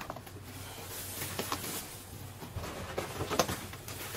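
Broken drywall being handled and dropped into a plastic trash bag: scattered crumbling, rustling and light knocks, with one sharper knock about three seconds in.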